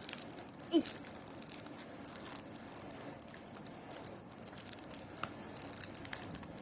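Toy car packaging being handled and pried open: crinkling and rustling with a steady run of small clicks and crackles.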